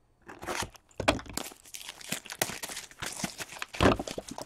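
The plastic wrap of a sealed Upper Deck Series 1 hockey card box being torn open, crinkling and tearing in quick irregular bursts, with the cardboard box scraping and rustling under the hands.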